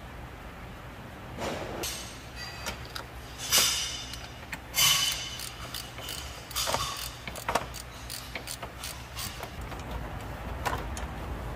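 Metal parts and tools clanking, scraping and knocking during hands-on work on a combine harvester's engine bay, with two louder ringing metallic clatters about a third of the way in. A steady low hum runs underneath.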